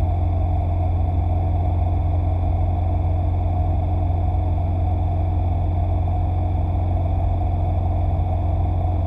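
Motorcycle engine and road noise at a steady cruise of about 75 km/h, picked up by the dashcam: a steady, heavy low rumble that does not change.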